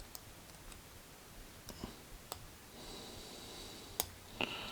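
Lock pick and tension wrench working the pin stack of a 50mm brass Ace padlock during single-pin picking: a few scattered light metallic clicks and ticks, the sharpest about four seconds in, as the picking is restarted from the front pin after an overset pin. A soft breathy hiss runs through the middle stretch.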